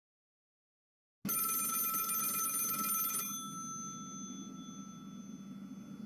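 Old rotary telephone's bell ringing: starting suddenly about a second in, the clapper rattles rapidly against the bells for about two seconds, then the bells ring on and fade.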